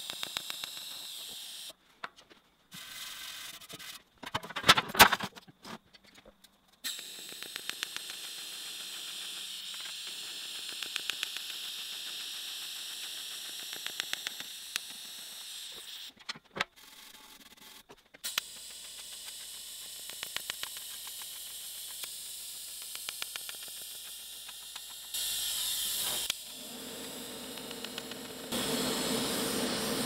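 Pulsed TIG welding arc on stainless steel: a steady hiss with a fast, even pulsing, stopping and starting several times. A cluster of loud sharp sounds around five seconds in.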